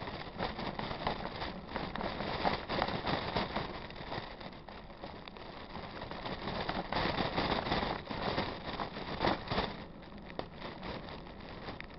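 Mountain bike rolling over a wet, slippery gravelly-clay trail: uneven crackling noise of the tyres on grit and the bike rattling, swelling a couple of seconds in and again around eight seconds in.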